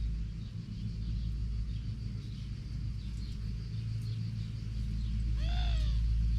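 A steady low rumble, a little louder from about five seconds in, with one short arching animal call with several overtones about five and a half seconds in.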